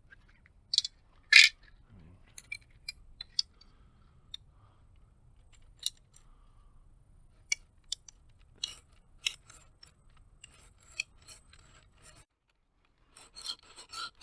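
Scattered sharp clicks and light knocks of wood and tools being handled, two louder knocks about a second in. Near the end a Boreal folding saw starts rasping through a wooden pole in quick strokes, cutting a notch.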